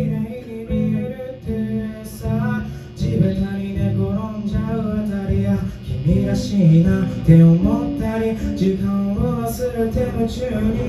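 Live rock band playing: a male voice singing a melody over electric guitars, bass guitar and drums, with cymbal hits now and then.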